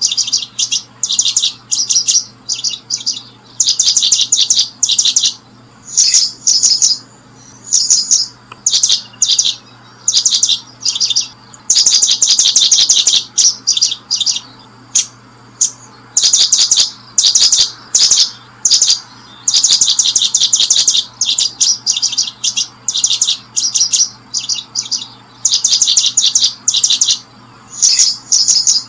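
Small birds chirping loudly, in rapid runs of high-pitched chirps a second or two long with short pauses between them.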